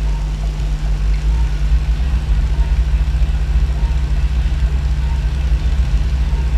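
Steady low hum of operating-room equipment running continuously, with a faint short beep about every second and a bit.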